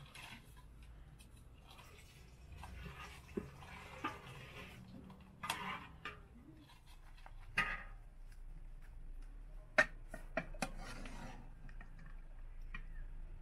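Tableware clinking: cups and metal utensils knocking against a metal serving tray, a handful of separate light clinks at uneven intervals, the sharpest a little past the middle.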